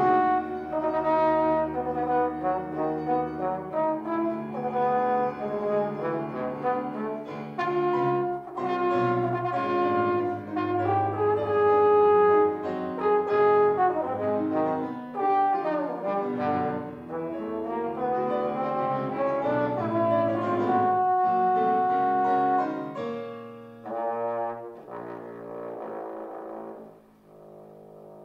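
Trombone playing a classical solo with piano accompaniment, in sustained notes with a few sliding changes of pitch. The playing grows softer over the last few seconds.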